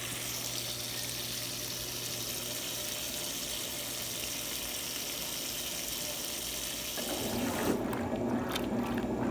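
Electrolux TOP8A top-loading washing machine filling with water, a steady hiss of water running into the tub. About seven seconds in the hiss stops and a lower sloshing with small knocks takes over.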